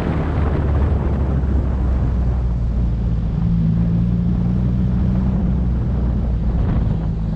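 2017 Subaru WRX's turbocharged flat-four engine running with a steady low drone.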